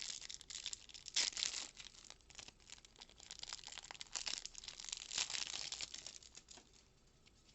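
Plastic card-pack wrapper being torn open and crinkled by hand, with sharp crackles and rustling that die away near the end.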